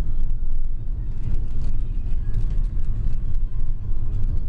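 Steady low rumble of a moving road vehicle, with engine and road noise dominating.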